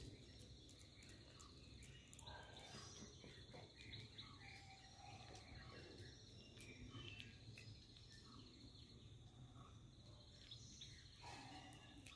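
Near silence with faint insect trilling, a steady high pulsing tone that drops out for about two seconds past the middle and then returns, plus a few faint clicks.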